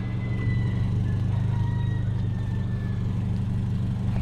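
Subaru BRZ's flat-four engine and road noise heard from inside the cabin while cruising, a steady drone that holds one pitch.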